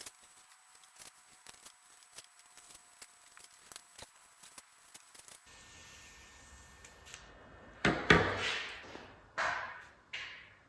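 Hand work on materials at a bench: a run of small clicks and taps, then three loud rustling, scraping strokes about a second apart, the first the loudest and each trailing off.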